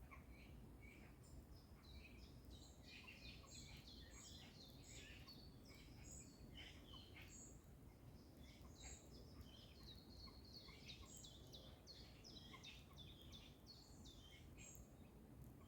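Faint birdsong: many short chirps and whistles from several small birds, overlapping throughout, over a steady low background rumble.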